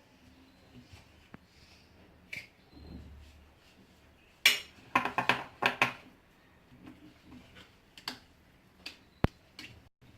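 Metal spoon clinking and tapping against a glass jar while spoonfuls of salt are added to preserved lemons. There is a quick run of clinks about halfway through, with scattered single taps before and after.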